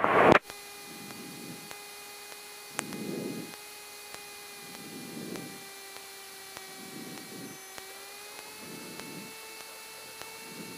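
Faint, steady cabin noise of a Cessna 172 light aircraft on final approach, heard through the headset intercom: a low hiss with a few thin steady tones that rise slightly in pitch near the end, and soft swells about every two seconds.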